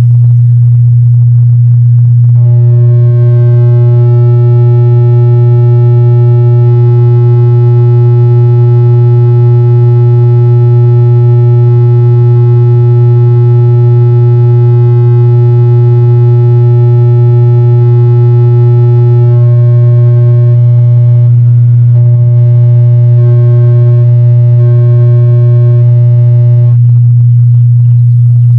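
Large sound system playing a loud, steady low test tone during a sound check. A second, higher steady tone with overtones joins a couple of seconds in, wavers slightly in the last third, then stops near the end while the low tone carries on.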